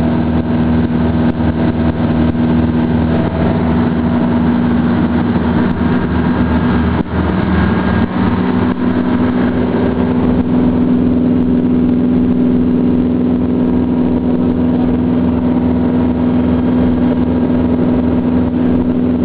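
Tugboat's diesel engine running steadily under way: a loud, even drone whose tone shifts slightly about eight seconds in.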